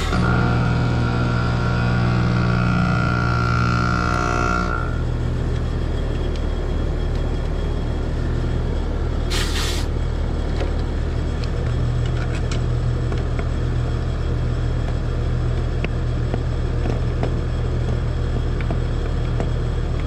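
Carrier heat pump outdoor unit running with a steady low hum. A pitched whine over it cuts off about five seconds in, and two short hisses come at about nine and a half seconds and at the very end.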